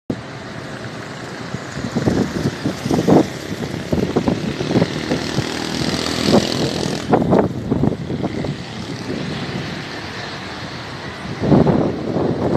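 Street traffic: motor vehicles passing, the engine and road noise swelling and fading several times.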